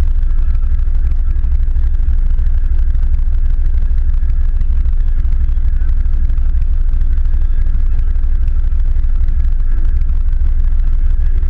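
Can-Am Maverick side-by-side engine idling with the vehicle stopped: a steady, loud, low rumble with no change in pace.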